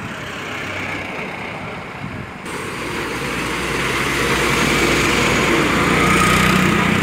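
Motor vehicles running, among them a heavy tipper truck's engine. The sound changes abruptly about two and a half seconds in, and from about four seconds a steady low engine hum grows louder.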